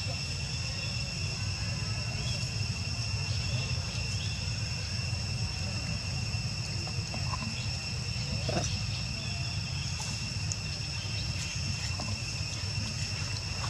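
Insects chirring steadily in two high, unbroken tones, over a low steady rumble.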